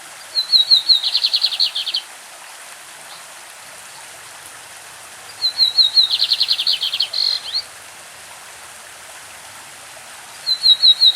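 Lined seedeater (bigodinho) singing its classic song three times, the last starting near the end: each phrase opens with a few quick high notes and runs into a fast rattling trill. A steady stream runs underneath.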